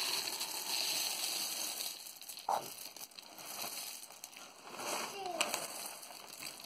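Chocolate cereal flakes poured into a plastic cereal canister: a rustling, pattering rush, loudest over the first two seconds and then thinning out, with a single sharp knock about two and a half seconds in.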